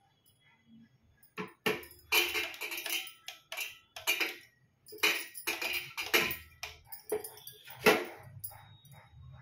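Bangles jangling and clinking on the wrists, with small metal idols knocking against a copper plate as they are handled. Several separate jangling bursts, the loudest about two, five, six and eight seconds in.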